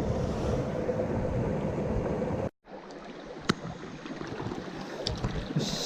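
Mountain stream water rushing steadily. It cuts off abruptly about two and a half seconds in and comes back quieter, with a few faint clicks.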